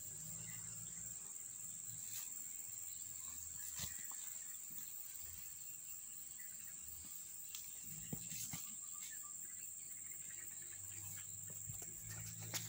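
Insects droning steadily at one high pitch, with a low hum underneath and a few faint clicks.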